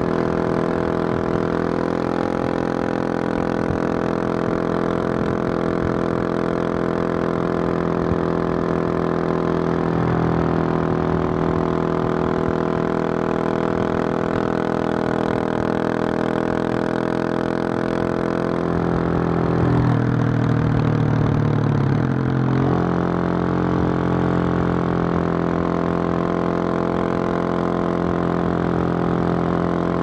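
2021 Husqvarna 701 Supermoto's single-cylinder engine through its Wings aftermarket exhaust, running steadily at road speed, heard from on the bike. The engine note changes pitch about ten seconds in. Around twenty seconds in it goes rougher for a couple of seconds, then settles back to a steady run.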